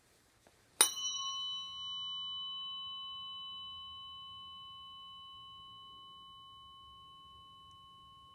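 A tuning fork struck once about a second in, then ringing with a clear high tone that slowly fades. It is used for Biofield Tuning, a sound-healing practice in which the ringing fork is moved through the space around the body.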